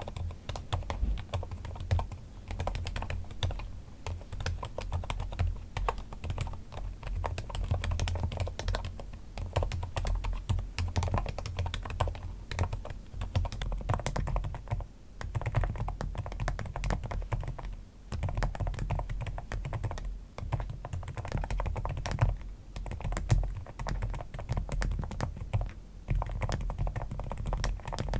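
Continuous fast typing on a NuPhy Air-series low-profile mechanical keyboard, a dense irregular clatter of key presses broken by a few short pauses.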